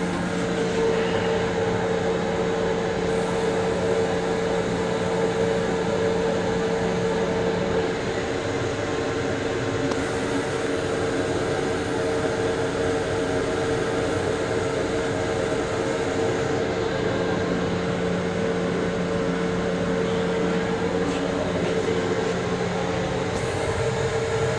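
Steady interior noise of an LIRR M7 electric railcar heard from inside its small restroom: an even rumble under a constant mid-pitched hum. A lower hum joins for the first third or so and comes back near the end.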